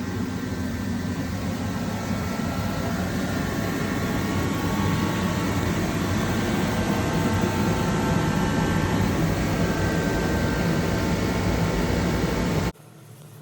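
A machine running with a steady, loud noise and a few faint steady tones, growing slightly louder before cutting off abruptly near the end.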